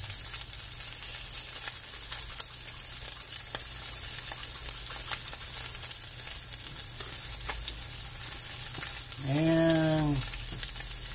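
Pork loin chops sizzling in a frying pan: a steady hiss with scattered small pops and crackles.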